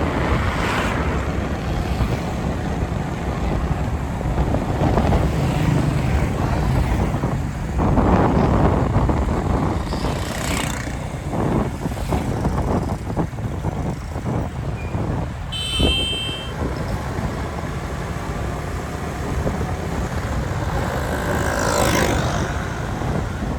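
Busy street traffic: vehicles going by in a steady rumble that swells as they pass. A brief high-pitched beep sounds about two-thirds of the way through.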